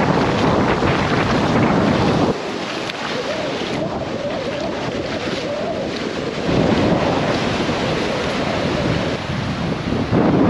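Small waves washing and foaming over a sandy, coral-rock shore, with wind buffeting the microphone. The sound drops sharply about two seconds in and comes back louder about four seconds later.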